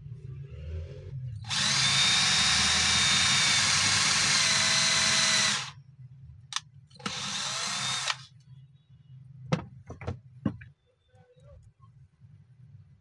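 Cordless drill boring into a wooden board: one long run of about four seconds, then a shorter burst of about a second. A few sharp knocks follow.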